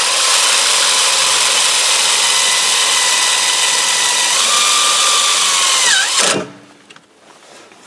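Cordless drill driving a hex-head self-tapping sheet metal screw into a tractor cab's cross member: a loud, steady motor whine that steps up slightly in pitch about four seconds in, then drops and stops about six seconds in.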